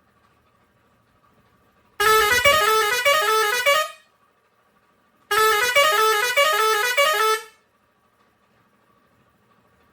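Pioneairs 632S digital air horn with steel trumpets playing a short musical tune of quick stepping notes, twice: about two seconds in and again about five seconds in, each lasting about two seconds.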